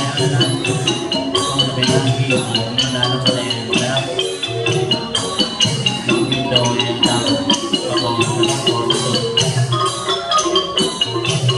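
Thai piphat ensemble music accompanying a likay dance, led by a ranat (Thai wooden xylophone) playing a steady stream of quick mallet notes over percussion.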